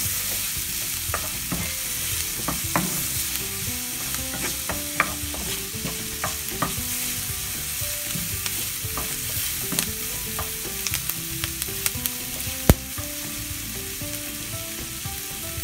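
Chopped onion and garlic sizzling gently in a nonstick frying pan over low heat, stirred and scraped with a spatula that clicks against the pan again and again. One sharper knock comes near the end.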